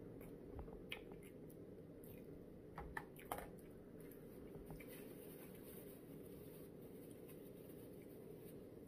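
Faint eating sounds: a few soft clicks and mouth noises, a cluster about one second in and the loudest about three seconds in, over quiet room tone with a low hum.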